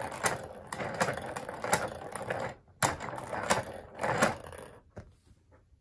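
Hand-cranked wooden automaton mechanism running: its wooden gears, snail cam and skew cam click and clack in a quick, irregular run, with a few louder knocks spaced a little under a second apart. The sound breaks off briefly partway through and dies away near the end.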